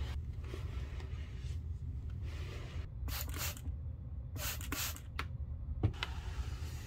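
Microfiber cloth rubbing over a leather handbag in a few short wiping strokes, the two loudest about three and four and a half seconds in, with a single light knock near the end.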